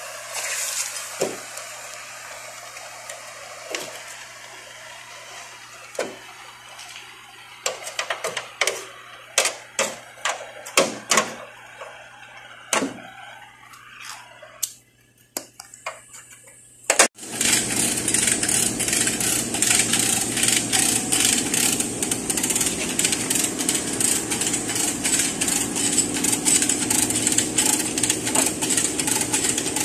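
Gas cutting torch hissing as it cuts through a car's rocker panel, with scattered metallic clinks and knocks. About seventeen seconds in, after a sharp bang, a loud, fast, steady mechanical rattle takes over.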